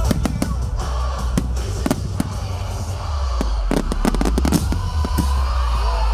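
Fireworks bursting in a series of sharp bangs, with a rapid cluster of bangs about four seconds in, over loud music with a heavy bass.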